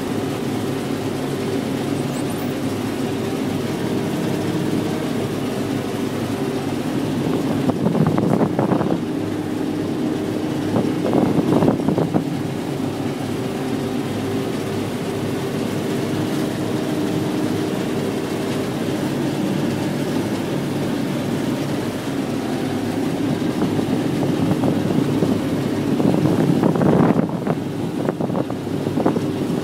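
Combine harvester running steadily while harvesting wheat, its engine giving a constant drone, with three louder, rougher surges: one about a quarter of the way in, one a little later, and one near the end.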